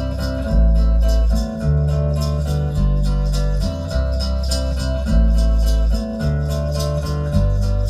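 Background music with a steady beat: plucked strings over a bass line that changes note about once a second.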